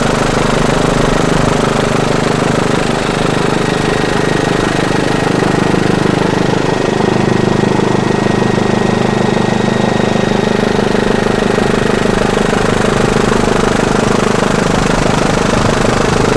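An engine running steadily with a constant drone, unchanging in pitch and level throughout.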